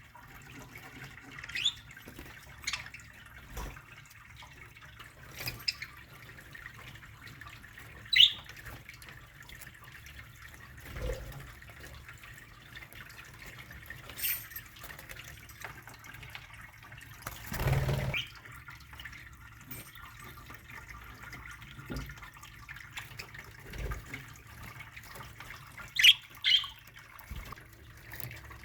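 Budgerigars in an aviary giving short, sharp chirps, one or two every few seconds with quiet gaps between, over a low steady hum. A brief noisy burst comes a little past the middle.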